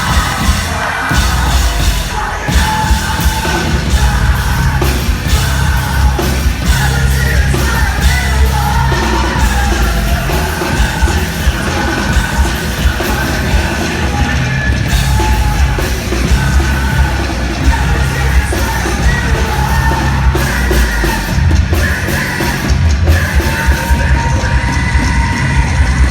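A post-hardcore band playing live at full volume, with heavy drums and guitars under a yelled lead vocal.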